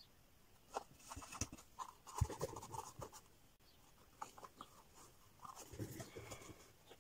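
Fingers rubbing and pressing an adhesive fabric patch into place inside a small juice-carton bag: scratchy rustling of paper and carton with small taps. It comes in two spells, with one sharper knock a little over two seconds in.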